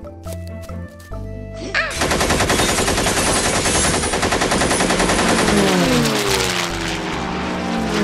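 Background music, then about two seconds in a cartoon machine-gun sound effect starts: a long, loud burst of rapid-fire shots. From about halfway through, a falling tone sounds over the gunfire.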